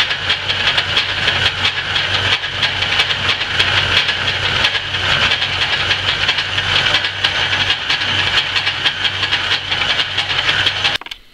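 Antique Rockford metal lathe running, its four-jaw chuck spinning while the tool bit takes a facing cut across a square metal plate. The sound is a steady low hum under a dense, gritty hiss, and it cuts off suddenly about eleven seconds in.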